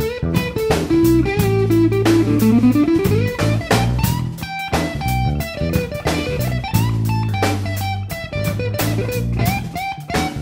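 Background music: electric guitar over bass and a steady drum beat, the guitar line sliding down and back up about two seconds in.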